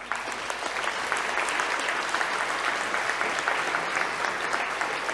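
Audience applauding: dense, steady clapping of many hands that breaks out at the start and holds at an even level.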